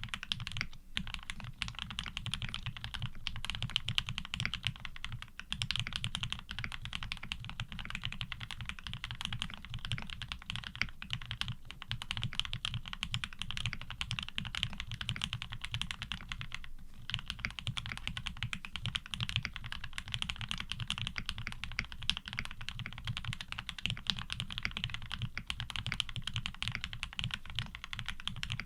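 Fast, continuous typing on a 7V custom mechanical keyboard with lubed Gateron Ink Black linear switches and GMK keycaps, with brief pauses about a second in and about halfway through.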